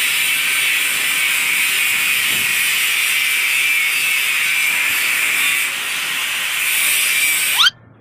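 Angle grinder grinding metal: a loud, steady, hissing grind that cuts off abruptly near the end.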